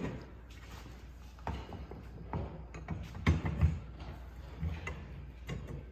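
Irregular knocks, clicks and clatters of tool parts being handled as a screen conveyor is worked onto its roller and the parts are lined up, with a cluster of knocks a little past halfway.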